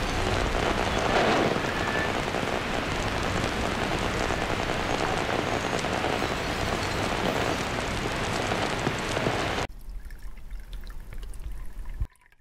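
Steady, even hiss like rain falling. It drops to a much quieter hiss about ten seconds in and cuts out just before the end.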